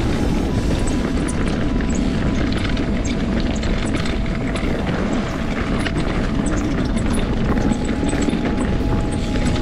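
Continuous wind rumble on the microphone while riding a rough off-road trail, with many small clicks and rattles from the bike going over stones.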